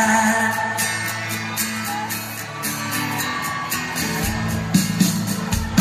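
Live acoustic music: several acoustic guitars playing, with some singing.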